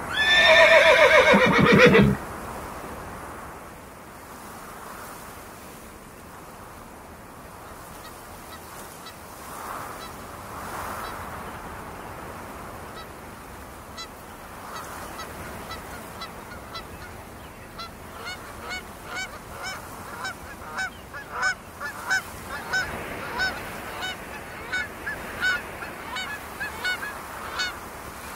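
A horse whinnies loudly once, a long shaky call falling steeply in pitch. After a quieter stretch, a flock of geese starts honking, the calls growing thicker and louder toward the end.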